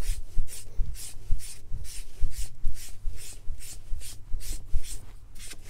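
Foam brush rubbing back and forth over a leather belt in quick, even strokes, about four swishes a second, spreading a wet coat of Resolene finish evenly over the dyed leather.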